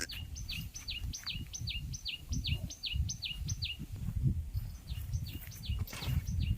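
A bird repeating a short, falling call about four times a second, breaking off about four seconds in and then starting again, over a low, uneven rumble.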